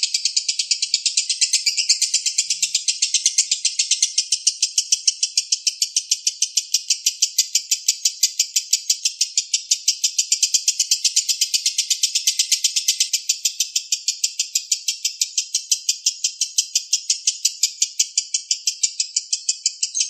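A lovebird's long, unbroken 'ngekek' chatter: a shrill series of rapid, evenly spaced notes repeated without a pause, used as a training song for other songbirds.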